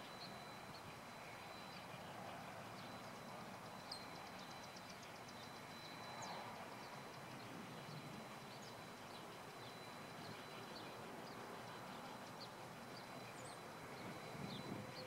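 Quiet outdoor ambience with a faint, steady high-pitched tone and scattered faint ticks, including a short quick run of ticks about four seconds in.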